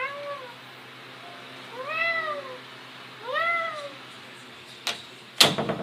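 Domestic cat meowing three times, each call rising and then falling in pitch, wanting to be let out of his room. Near the end comes a short click and then a louder, sharp knock.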